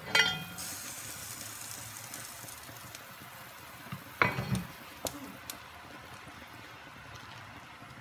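Le Creuset enameled cast-iron pot lid lifted with a ringing clank, then miso broth bubbling at a boil. About four seconds in comes another clank, then a few light knocks as a wooden spoon stirs the pot.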